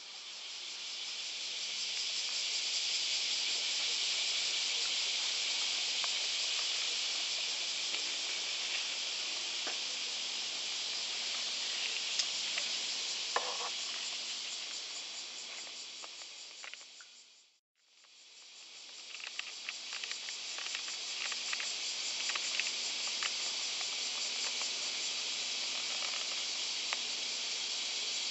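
Dense, steady chorus of insects, a high hiss with a few faint clicks in it, fading out about 17 seconds in and back in a moment later.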